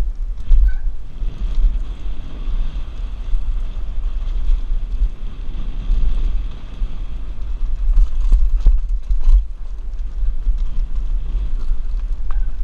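Wind buffeting a helmet-mounted camera while a mountain bike runs downhill over rough trail, the bike rattling and knocking over bumps, with a cluster of sharp knocks about eight to nine seconds in.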